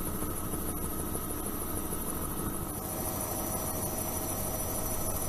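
Helicopter flight noise: a steady drone of rotor and turbine with a thin high whine over it. A further tone joins about three seconds in.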